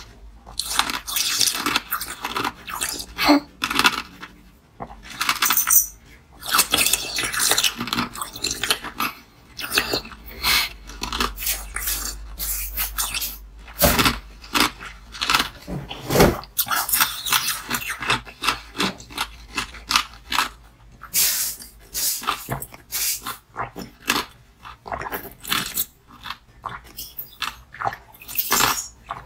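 Ice being crunched and chewed close to the microphone: a dense run of irregular sharp crunches and crackles, with brief pauses between mouthfuls.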